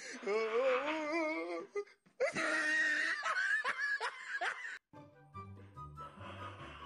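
Loud laughing for nearly five seconds, cut off suddenly, after which quieter background music with a stepping bass line starts.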